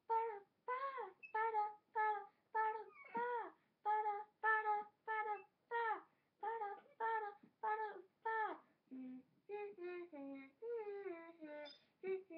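A child singing a cappella, a run of short sung syllables on one note about twice a second, then near the end a few falling melodic phrases.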